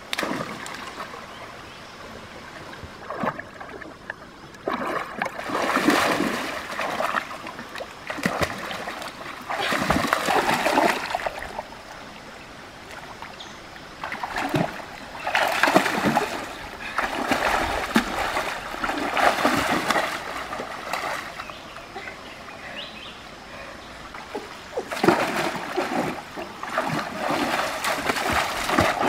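A person splashing through shallow stream water among rocks, groping for fish by hand. The splashing comes in repeated bouts of a few seconds each, over the steady trickle of the flowing stream.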